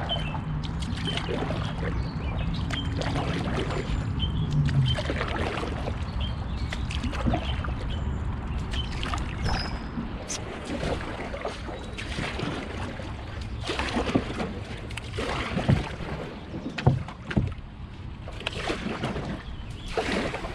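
Old Town Discovery 174 canoe being paddled: paddle strokes in the water with drips and splashes over a steady low rumble. Several sharper splashes or knocks come in the last seven seconds.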